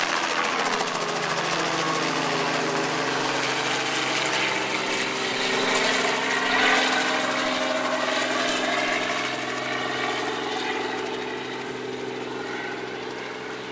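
Small tour helicopter's engine and rotor running steadily as it flies away, the sound fading over the last few seconds.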